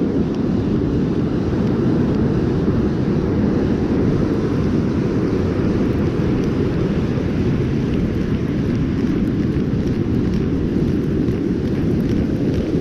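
Steady low rumble of wind buffeting the microphone, even and unbroken throughout.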